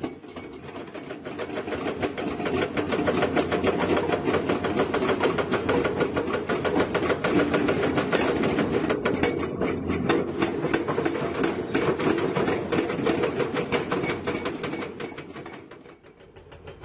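Heavy diesel engine of a construction machine running with a fast, even clatter, dropping away shortly before the end and picking up again.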